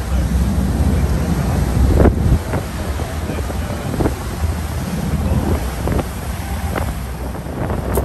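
Wind buffeting the microphone on a boat at sea, over a steady low rumble and the wash of the sea, with a few short slaps.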